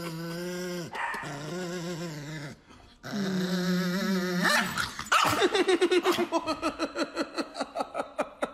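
Chihuahua growling in long held snarls as it is kissed, then a fast run of short, louder pulses, about five a second, over the last three seconds.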